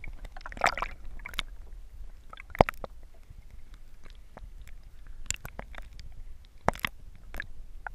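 Lake water sloshing and lapping around a camera held at the surface, heard partly under water, with irregular small splashes and knocks. The sharpest comes about two and a half seconds in, and another near the end.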